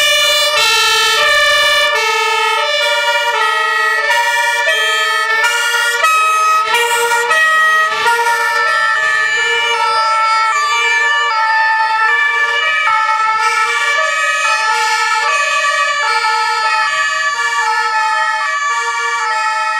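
Fire engine two-tone sirens sounding, alternating steadily between a high and a low note.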